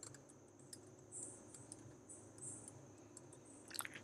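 Faint computer keyboard keystrokes: a few scattered soft clicks as a short phrase is typed, over a low steady hum.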